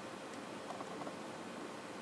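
TOMYTEC 1/5-scale 201-series destination roll sign model scrolling its film: a faint steady hiss with a few light ticks and rustles from the winding mechanism.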